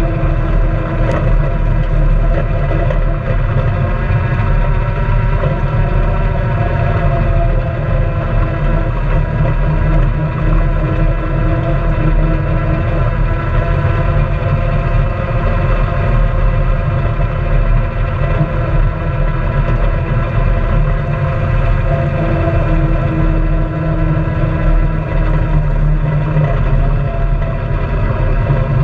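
Honda Pioneer 700-4 side-by-side's single-cylinder engine running at a steady cruising pace, with a heavy low rumble of the machine rolling over a gravel trail.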